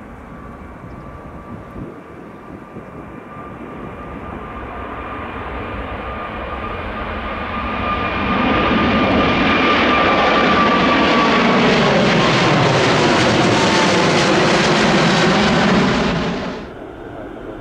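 Jet airliner's engines passing close: the noise grows steadily louder over several seconds, holds at its loudest for a long stretch, then cuts off suddenly near the end. A steady whine is heard while the noise builds and fades as the roar takes over.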